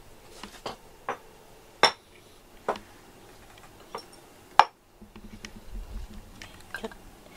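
Dishes and utensils clinking: a series of separate sharp clinks and taps, the loudest about four and a half seconds in.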